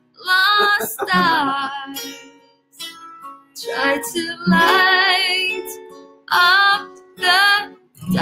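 A woman singing in short held phrases with vibrato, accompanied by a strummed acoustic guitar.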